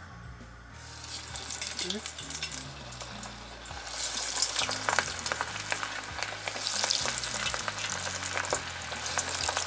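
Flour-coated cuttlefish strips deep-frying in hot oil in a stainless steel pot: sizzling and crackling with many sharp pops. It starts about a second in and grows louder about four seconds in as more strips go into the oil.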